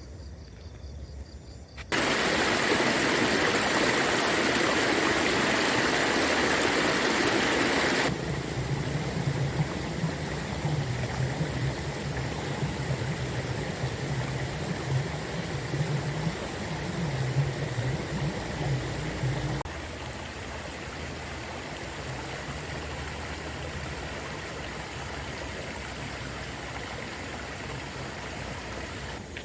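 Shallow river water gurgling and rushing over stones. The level jumps sharply louder about two seconds in and drops back in steps later on. Through the middle stretch a low wavering hum runs under the water.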